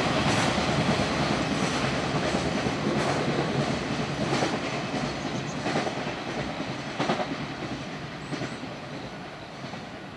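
A train running away along the line, its wheels rumbling and giving a clack at rail joints about every second and a half, fading steadily as it recedes.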